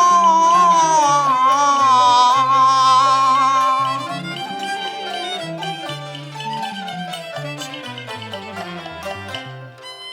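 Cantonese opera music: a long, wavering high note is held for the first four seconds or so. The accompanying traditional band, led by a bowed string instrument, then plays a quieter melodic interlude.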